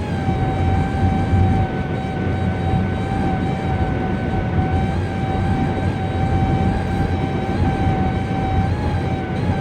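Steady high-pitched whine from a 2015 Chrysler Town and Country minivan, heard inside the cabin over road rumble at about 65 mph. It is the weird noise the van keeps making after five dealer visits, cause undiagnosed.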